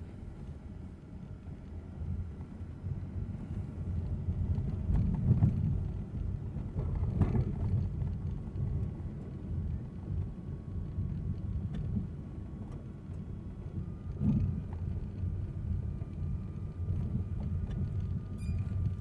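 Low rumble of a car driving slowly, heard from inside the cabin, with a few louder bumps and swells about five to seven seconds in and again about fourteen seconds in.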